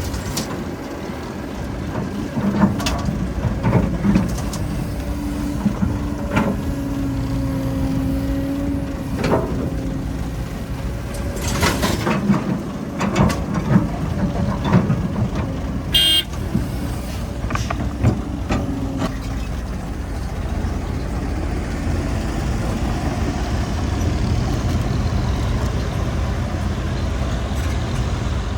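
Heavy diesel machinery, an excavator and a dump truck, running steadily, with repeated metal clanks and knocks for most of the time. A short, sharp, high-pitched ring comes just past the middle, and the engine drone runs on more evenly near the end.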